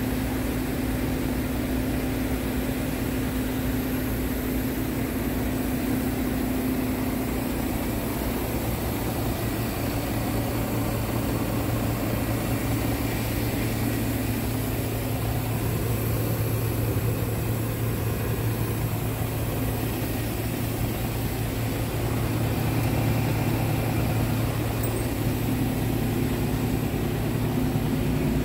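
Scania R truck's diesel engine idling steadily, a low even hum that holds throughout.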